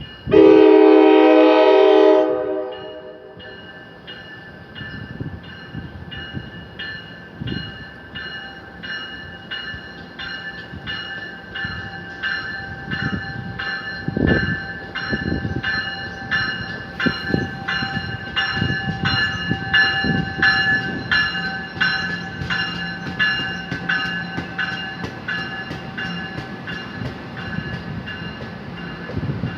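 A train horn sounds a loud chord for about two seconds. The train then rolls by with a bell ringing in steady, evenly spaced strokes over occasional low wheel clacks.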